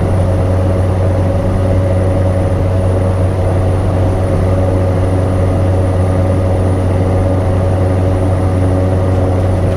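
Cessna 208 Caravan's single Pratt & Whitney PT6A turboprop engine and propeller running steadily in flight, heard inside the cockpit as a loud, even drone with a deep hum.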